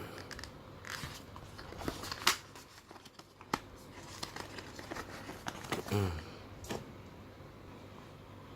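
Scattered small clicks and rustles of wireless earphones and their packaging being handled, with one sharper click a little over two seconds in.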